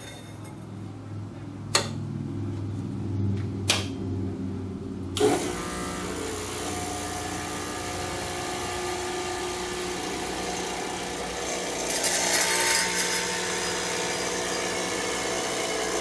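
Lelit PL41TEM espresso machine priming on first power-up: two sharp switch clicks over a low hum, then from about five seconds in its pump buzzes steadily while water and air spit and hiss out of the steam wand into a stainless pitcher.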